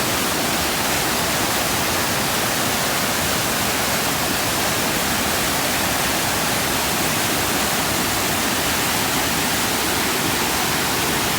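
Glacier-fed river rushing steadily, a continuous loud wash of water.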